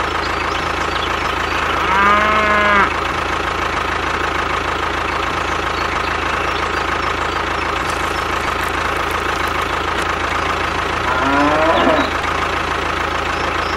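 A cow mooing twice, one call about two seconds in and another near the end, each lasting about a second, over a steady mechanical hum with a thin whine.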